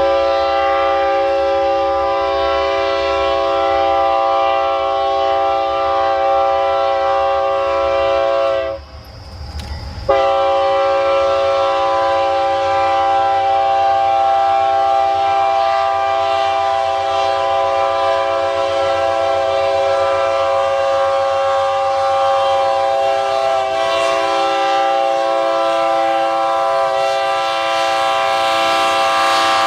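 Locomotive air horn sounding a long, steady multi-note chord over a low rumble. It drops out briefly about nine seconds in, then sounds again and holds.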